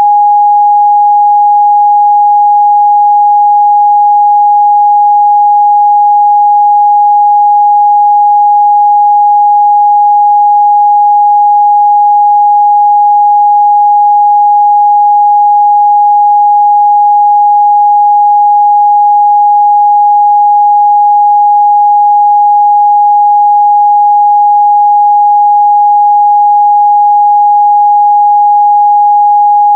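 A steady, loud 826 Hz pure sine test tone, one unchanging pitch with no other sound.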